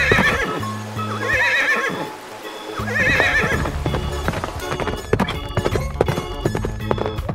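Cartoon zebra voiced with a horse's whinny: three wavering whinnies, then a quick clip-clop of hooves from about the middle on, over background music.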